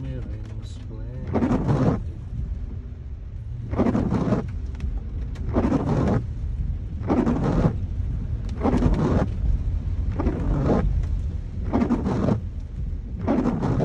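Car windshield wipers sweeping across a rain-wet windscreen, heard from inside the car: a swish on each stroke, about every one and a half seconds, over a steady low rumble.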